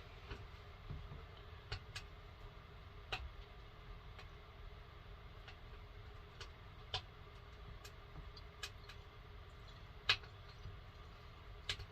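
Faint, scattered clicks and light taps of hands handling plastic and metal parts, with the sharpest click about ten seconds in, over a faint low hum.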